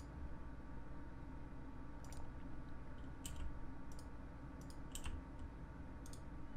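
Faint, scattered clicks of computer keyboard keys and mouse buttons, about half a dozen, unevenly spaced, as bones are rotated in 3D software.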